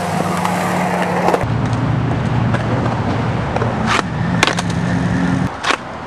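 Skateboard rolling on concrete, with several sharp clacks of the board, over steady low droning tones that shift a couple of times.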